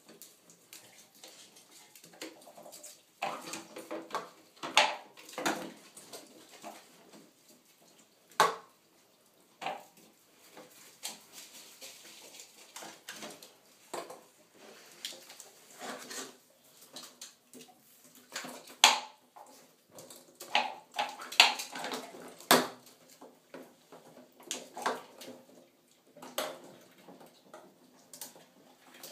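Small plastic balls and plastic cups clattering and knocking in a clear plastic storage bin as ferrets paw and rummage through them. The clicks and knocks are irregular, with a few sharper, louder knocks.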